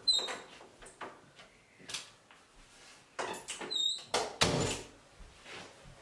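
An interior door being opened and shut, with two brief high squeaks and several knocks and bumps, the loudest about four and a half seconds in.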